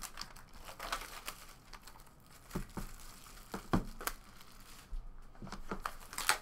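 Plastic shrink wrap being torn off a trading-card box and crumpled: irregular crinkling and crackling, busiest near the end.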